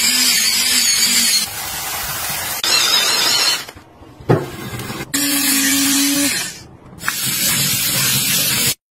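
A handheld electric spin scrub brush running and scrubbing wet surfaces: a low motor hum under the brushing noise, in several short cuts that start and stop abruptly. About midway there is a quieter stretch of tap water running, with one knock.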